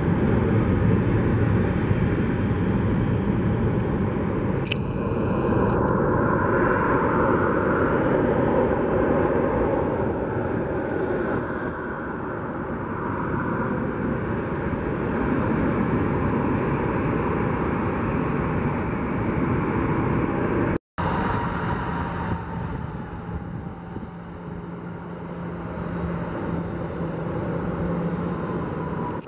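Boeing 737 jet engines running as a steady, even roar while the airliner taxis. After a brief dropout about two-thirds through, another 737 is heard on its takeoff roll, with a steady hum under the roar.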